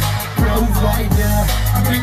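Live hip-hop-style music through a concert PA system: deep sustained bass with booming bass-drum hits that drop in pitch about every three quarters of a second, and a man rapping into a microphone over it.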